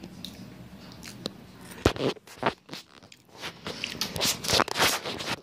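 Crunchy Flamin' Hot Cheetos being bitten and chewed close to the microphone: a few sharp crunches about two seconds in, then a dense run of crunching near the end.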